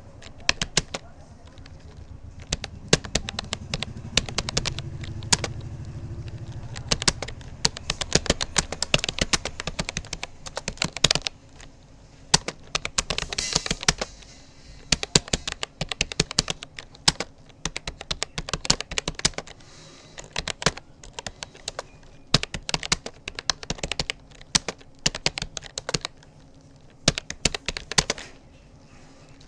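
Rapoo computer keyboard being typed on in quick, uneven runs of key clicks, with a few brief pauses between bursts.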